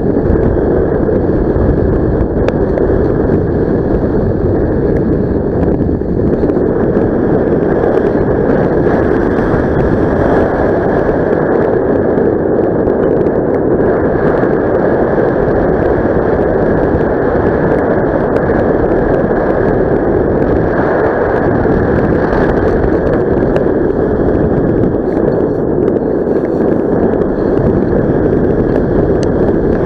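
Airflow rushing over an action camera's microphone during a paraglider flight: a loud, steady wind noise with no break.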